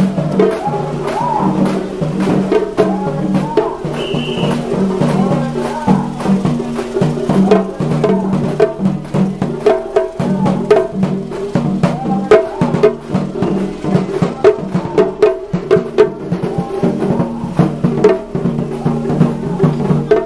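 Japanese festival music (matsuri bayashi) from the passing float trucks: a taiko drum and sharp wooden clicks beat a steady, quick rhythm under a wavering melody line.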